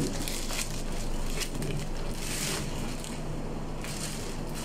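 Plastic bag crinkling and rustling as it is peeled off a block of ground meat on a stainless steel tray, over a steady low hum.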